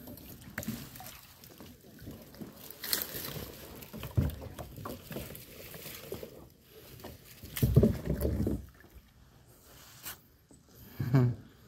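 Canoe paddling: irregular splashes and knocks of the paddle in the water and against the hull, with a heavier low thump about eight seconds in.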